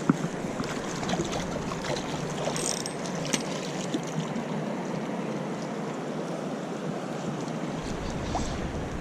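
Steady rush of flowing river water, with a few faint clicks and a low wind rumble on the microphone near the end.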